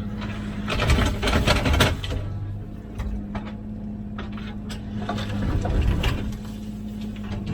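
Komatsu PC16 mini excavator's diesel engine running steadily, with two louder spells of noisy scraping and clatter, about a second in and again near six seconds, as the machine works under load.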